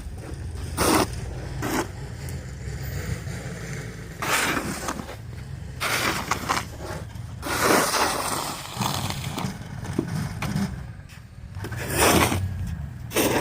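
Irregular crunching and scraping in deep snow, in short bursts of about half a second to a second and a half, over a steady low rumble.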